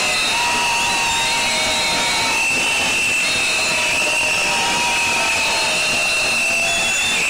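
Loud, dense din of a protesting crowd, with many whistles blown nonstop in a shrill steady tone and lower held tones coming and going over it.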